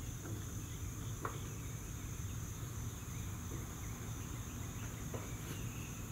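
A few faint clicks as the control knobs of a Monument six-burner stainless steel gas grill are turned up to max, over a steady high background hiss; the burners have not yet lit.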